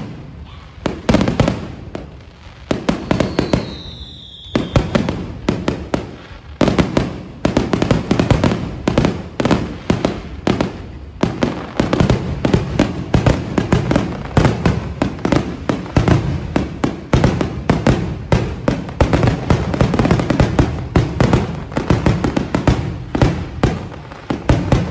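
Aerial fireworks shells bursting overhead, with bangs and crackling. The bangs are spaced out at first and then come in a rapid, nearly continuous barrage from about seven seconds in. A short falling whistle sounds around three to four seconds in.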